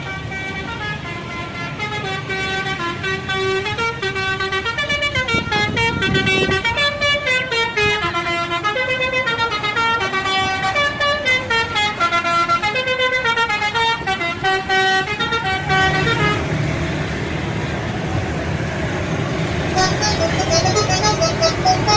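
Indonesian bus telolet horn, a multi-tone air horn, playing a stepping melody of several notes over and over for about sixteen seconds, then stopping. A bus engine runs steadily underneath and carries on after the horn stops.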